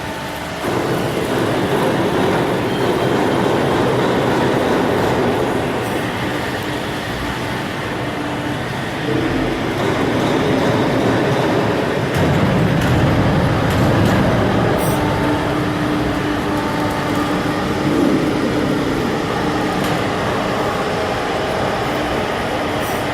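CNC hydraulic press brake running: a loud, steady mechanical din with a hum that comes and goes, swelling a little about halfway through, and a few sharp clicks.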